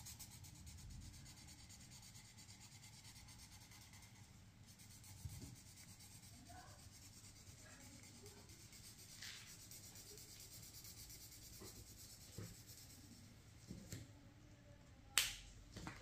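Faint scratching of an Ohuhu art marker's nib rubbing on paper as it colours in. A few soft knocks, and a sharper knock about a second before the end.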